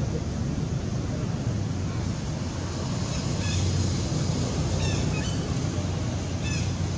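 Three short, high squeaking calls from a young long-tailed macaque, starting about halfway through and coming about a second and a half apart, over a steady low rumble.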